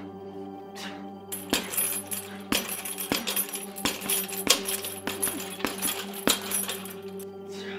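Gloved fists punching a hanging heavy bag in a fast, irregular flurry of hits, starting about a second and a half in and stopping near the end, over a sustained music drone.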